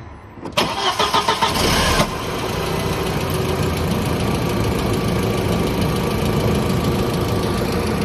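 VW Passat 1.8T turbo four-cylinder engine cranked by the starter for about a second and a half, then catching about two seconds in and running steadily. The no-start fault is traced to an intermittent relay that lets the engine run only while it holds contact.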